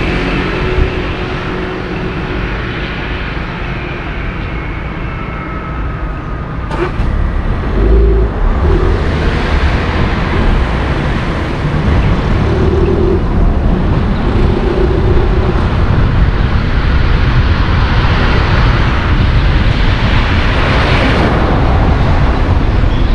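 Car being driven through town streets: steady engine and tyre road noise with a low rumble, growing louder about eight seconds in as it pulls away from a junction. There is a single sharp click at about seven seconds.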